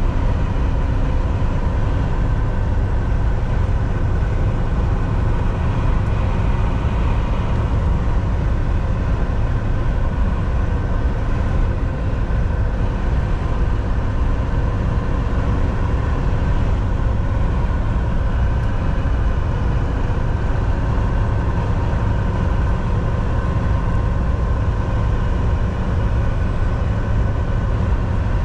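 Volvo semi-truck driving at steady highway speed: a constant low engine drone and road rumble that does not change.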